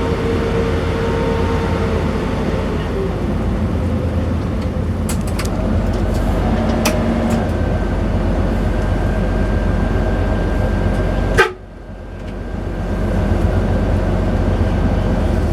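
Coach engine running with a steady low drone and road noise; it drops away sharply about eleven and a half seconds in and builds back up over the next couple of seconds.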